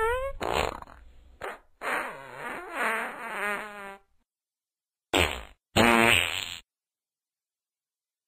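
A run of fart sounds: a buzzy one rising in pitch at the start, a short one, then a longer one with a wavering pitch to about four seconds in. After a second of dead silence come two short ones, the second a little longer.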